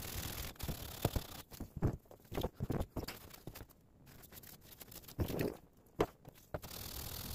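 Aluminium cylinder head from a Kawasaki FH721D being hand-lapped flat on wet 220-grit sandpaper: a steady gritty scrape that stops about half a second in. Scattered knocks and handling sounds follow as the head is lifted, wiped and set down and water is poured on the paper, then the steady scraping starts again near the end.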